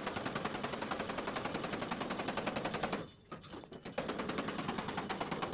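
Steel body hammer tapping rapidly and evenly on the door skin's bottom hem flange, with a hand dolly held behind the metal, to fold the flange over. The blows break off briefly about three seconds in, then resume.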